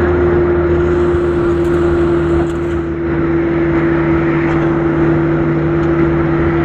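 Engine and road noise from inside a moving vehicle: a steady drone with tyre rumble.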